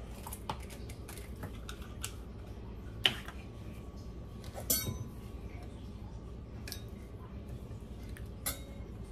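Kitchen utensils and dishes clinking and knocking while a pasta salad is being prepared: a few scattered sharp clinks, the loudest about three seconds in, and a short rattle about a second and a half later.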